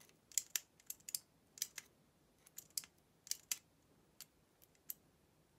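Light, irregular clicks of a metal test-light probe tip tapping and scraping against the terminals of a plastic drill trigger switch as it is moved from contact to contact.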